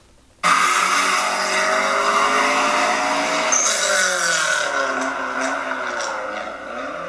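Recording of a factory-turbocharged car engine revving hard, its pitch falling and rising, with a turbo blow-off valve whoosh partway through. It starts suddenly about half a second in.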